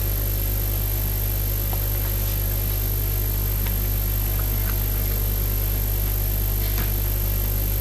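Steady electrical hum and buzz from the hall's microphone and sound system with no one speaking, with a few faint ticks.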